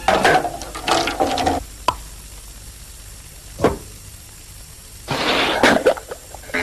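Music stops about a second and a half in, leaving a quiet room with two short knocks, drinking glasses being set down on the floor. Near the end comes a brief burst of rustling.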